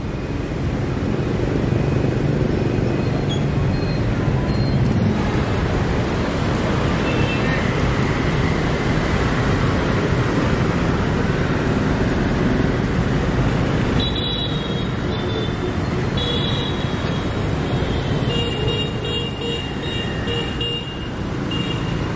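City street traffic: a steady run of motorbikes and cars passing. In the second half, horns beep several times over the engine noise.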